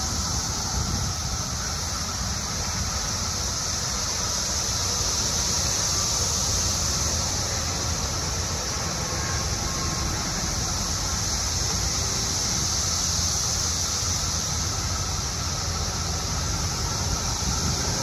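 Chorus of Brood X periodical cicadas, a steady, loud, high-pitched drone, over the low, steady rumble of highway traffic.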